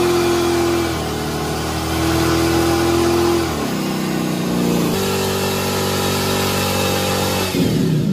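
Chevy S-10 pickup's engine held at high revs during a burnout, its rear tyre spinning on the pavement. The revs dip for a moment about halfway, come back up, then drop off just before the end as the throttle is released.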